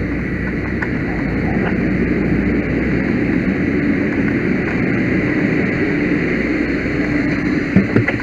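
Steady loud drone of a running engine with a low hum, growing a little louder over the first few seconds, with a couple of sharp knocks near the end.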